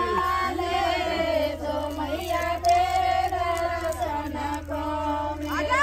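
Several voices singing a song together in long, held melodic lines, over a faint steady low hum.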